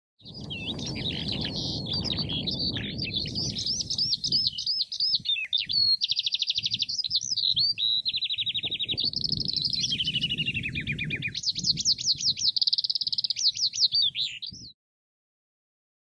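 Skylark singing in song flight: one long unbroken stream of fast, high warbles, trills and rapidly repeated notes, which cuts off suddenly near the end. A low rumble sits underneath, strongest in the first few seconds.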